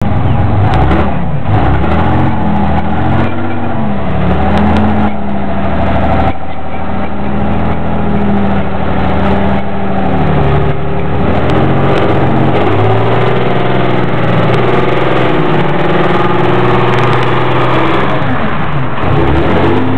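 Engine of a tracked, stretched armoured-personnel-carrier limousine running as the vehicle drives, its pitch rising and falling repeatedly as the revs change.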